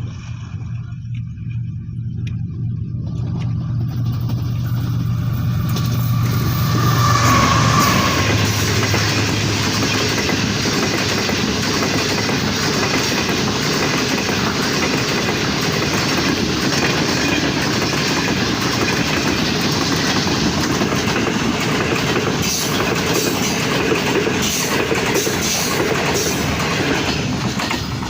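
A Pakistan Railways train with a diesel locomotive passing at speed. The locomotive's engine note grows as it approaches, then the coaches rush past with steady, loud wheel and rail noise and some clickety-clack for about twenty seconds, fading near the end.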